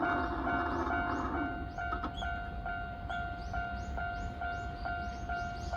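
Japanese railway level-crossing alarm bell ringing in an even repeating ding, a little over two rings a second. Under it a train's running noise fades away about a second and a half in, with a sharp rail clack about two seconds in.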